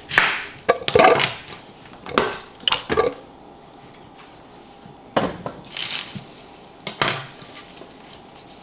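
A series of short, irregular clatters and knocks from objects handled on a kitchen counter: a few near the start, three more about two to three seconds in, and another few later on.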